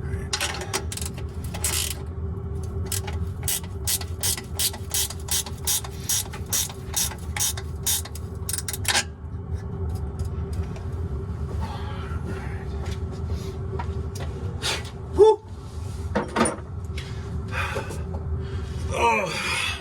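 Hand ratchet wrench clicking through repeated short strokes, a few clicks a second, as bolts on the Detroit Diesel 6V92 exhaust manifold are run in; the clicking stops about nine seconds in. A steady low hum runs underneath, with one sharp metallic knock about fifteen seconds in.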